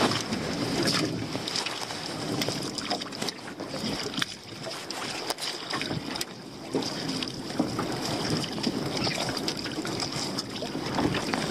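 Wet, weed-covered pot rope hauled hand over hand over the side of a small dinghy, with irregular knocks and rustles as it drops into the boat, over steady wind noise on the microphone.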